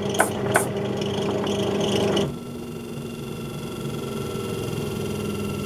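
Homemade disc sander running with a block of wood held against its sanding disc, with a few sharp knocks in the first second. About two seconds in the sanding stops and the sander runs on alone, quieter, with a steady whine. Its motor bearing is worn out.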